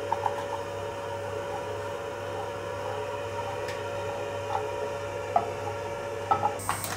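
A port-wine reduction simmering in a pan on a gas burner while being stirred with a wooden spoon, with a few light taps of the spoon against the pan over a steady hum. A short burst of noise comes near the end.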